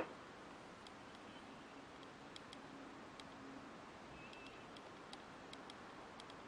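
One sharp knock right at the start, then faint, irregular ticks of fingertips tapping a smartphone's glass touchscreen over quiet room tone.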